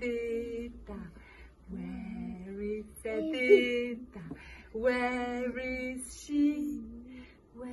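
A woman's voice singing a simple tune without words, in a string of short held notes with brief breaks between them.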